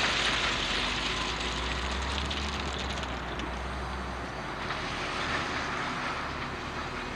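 Volvo ECR 235 CL excavator's diesel engine running under working load, with a low steady hum that drops away about four seconds in.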